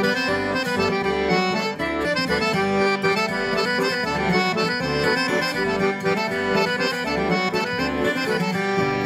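Instrumental background music, a melody over a steady beat in the bass.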